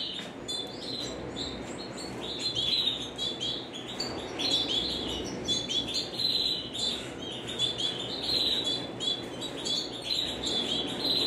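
Several domestic canaries chirping and calling in short, repeated notes, with no regular rhythm.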